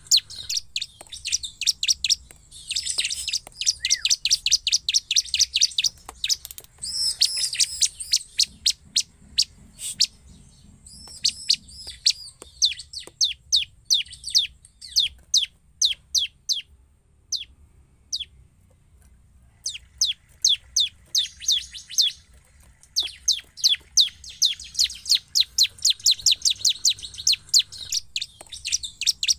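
Bar-winged prinia (ciblek) singing in a cage: rapid strings of sharp, high chirps, with a pause of a few seconds just past the middle.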